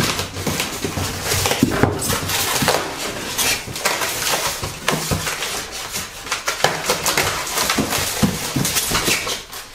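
Packaging being handled: a plastic bag crinkling and foam rubbing as a bagged power cord and plug are worked out of a polystyrene insert in a cardboard box, with steady crackling and small clicks throughout.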